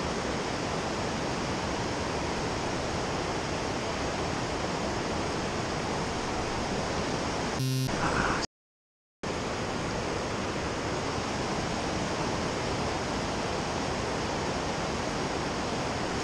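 Steady rush of creek rapids, an even hiss of fast water over rock. About halfway through, a brief edited-in tonal sound effect, followed by a moment of total dropout at an edit cut before the water noise resumes.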